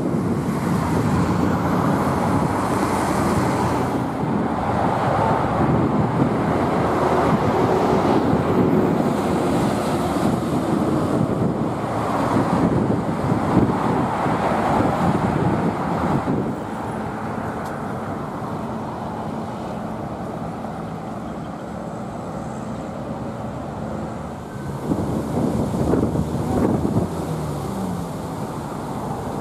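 City street traffic: cars passing by in rising and falling swells for the first half, then a quieter steady low hum with one more car going by near the end.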